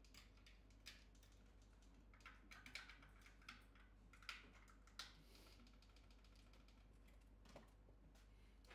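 Faint, irregular clicks and taps, about ten of them, most of them bunched between two and five seconds in, over a steady low hum.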